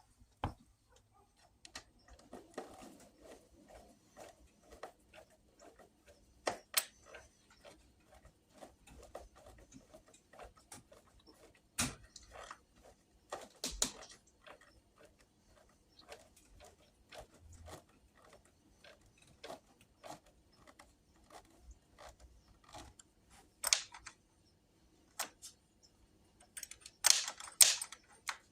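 Storm door latch hardware being handled and fitted by hand: irregular small metallic clicks and taps, with a few sharper knocks scattered through and a quick cluster of them near the end.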